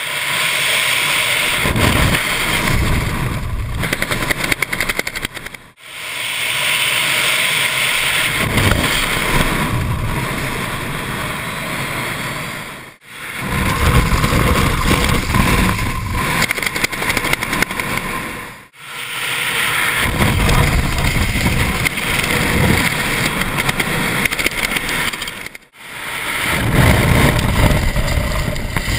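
Wind rushing and buffeting over a helmet camera's microphone during parachute openings and flight under a Performance Designs Katana 120 canopy, with gusty low rumbles. The sound drops out briefly four times where one clip cuts to the next.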